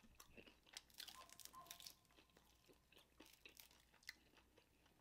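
Faint chewing and crunching of fried chicken wings, a scatter of soft, short mouth clicks and crackles.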